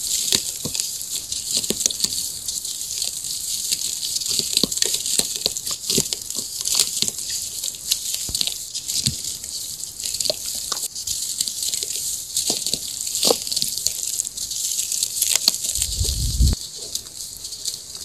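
Dry sandy cement lumps crunching and crumbling in the hands, grains pattering into a basin of water with a steady fine hiss and many small crackles. A low thud comes about sixteen seconds in.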